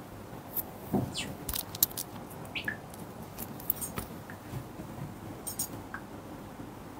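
Scattered small clicks and brief light metallic clinks, like a bracelet and watch moving on a wrist, over a steady room hum.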